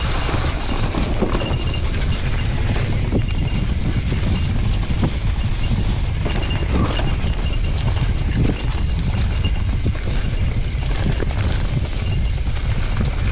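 Mountain bike rolling fast down a rough dirt trail covered in dry leaves, heard from a helmet-mounted camera: steady wind buffeting on the microphone with tyre and trail noise and scattered knocks as the bike goes over bumps.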